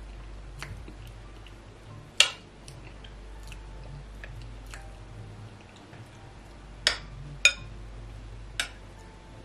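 A metal spoon clinks sharply against a glass bowl as it scoops through pepper soup. The loudest clink comes about two seconds in, and three more follow close together near the end. Faint wet chewing and squishing can be heard between the clinks.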